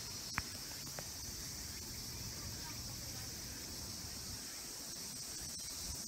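Steady, high-pitched chorus of insects in the summer hillside vegetation, with two short clicks about half a second apart near the start.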